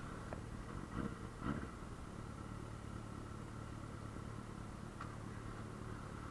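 Yamaha Fazer 600's inline four-cylinder engine running steadily on the move through a gutted exhaust pipe, with two brief louder moments about a second and a second and a half in.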